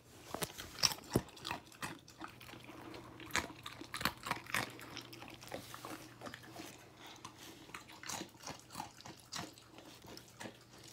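A dog crunching and chewing chips: irregular crisp crunches, several a second, loudest in the first second or so.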